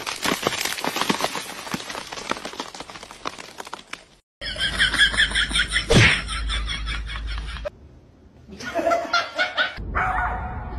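Dogs barking and yipping amid people laughing, across several short clips. A loud sharp knock comes about six seconds in, and the sound drops out briefly just after four seconds.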